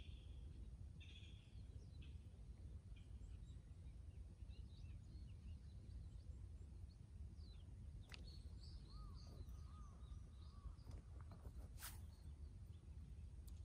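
Quiet lakeside ambience: a low steady rumble with faint scattered bird chirps and whistles. Near the end comes one brief sharp swish of a fishing rod being cast.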